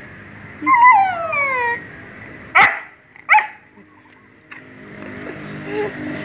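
Siberian husky whining: one long falling whine about a second in, then two short sharp yips a little under a second apart.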